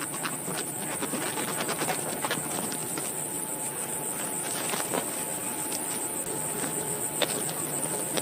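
Steady high-pitched insect chirring, crickets, with many irregular small clicks and ticks over it.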